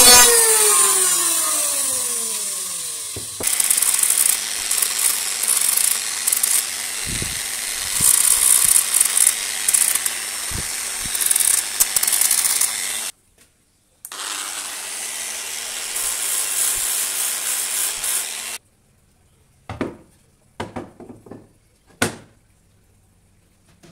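An electric hand planer's motor winding down, its whine falling in pitch over the first three seconds. Then an angle grinder fitted with a sanding disc sands a wooden stool leg in two long, uneven passes. Near the end a few light knocks as the wooden legs are set on the steel workbench.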